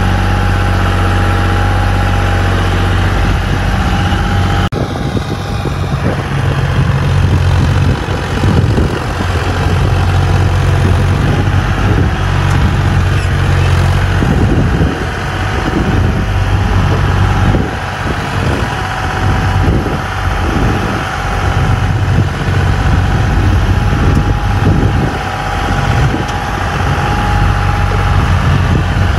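John Deere 5042 D tractor's three-cylinder diesel engine running steadily under heavy load, pulling a fully loaded soil trolley hard enough to lift the front wheels. From about eight seconds in, irregular knocks and rattles join the engine.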